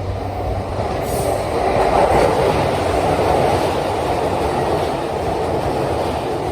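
JR East E233-1000 series electric commuter train pulling into a station, its wheels running on the rails in a steady rumble that is loudest about two seconds in.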